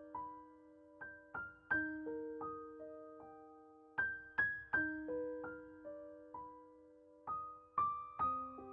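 Soft background music: a slow, gentle piano melody of single struck notes that ring and fade, in short phrases that repeat every couple of seconds.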